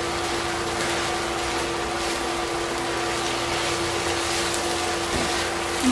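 Kimchi fried rice sizzling steadily in a frying pan as it is stirred and turned with a wooden spatula, over a constant low hum.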